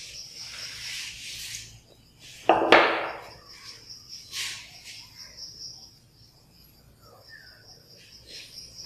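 Blackboard duster rubbing across a chalkboard to wipe it, then a sudden loud knock about two and a half seconds in, with a short ring after it. Further brief scrapes follow, and light chalk taps and scratches come near the end as writing starts. A thin, high insect trill runs underneath on and off.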